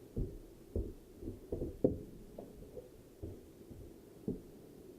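A series of about eight irregular, muffled low thumps, the loudest a little under two seconds in.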